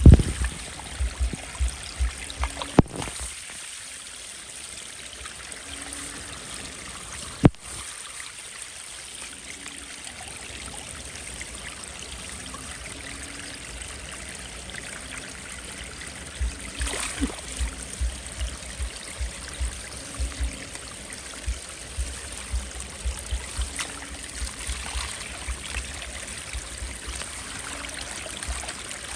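Steady noise of running water, with spells of irregular low thumps and two sharp clicks, about three and seven and a half seconds in.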